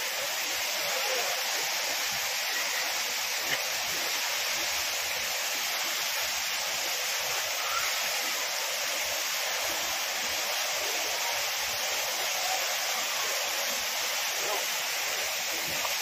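Steady rushing of a tall waterfall pouring down a rock cliff, an even hiss with no change in level.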